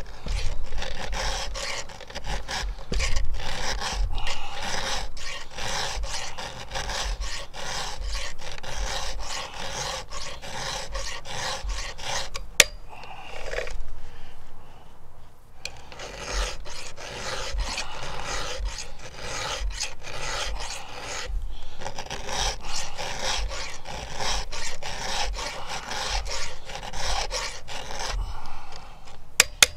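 Round chainsaw file rasping across the cutters of a 3/8 pitch chain on a Stihl MS661, in repeated strokes as the teeth are hand-sharpened. The strokes pause for a couple of seconds near the middle, just after a single sharp click, then carry on. The cutters are worn short, with little gullet left to file.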